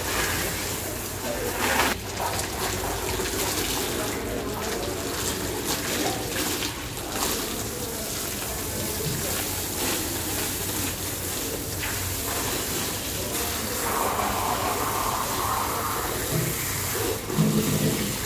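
Water spraying steadily from a garden hose onto cattle hides and splashing on a wet concrete floor. A brief, louder low sound comes near the end.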